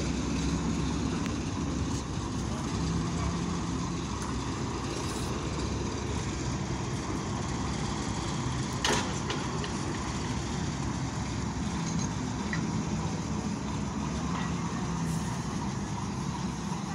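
Diesel railway engine idling: a steady low rumble with a hum underneath. A single sharp click about nine seconds in.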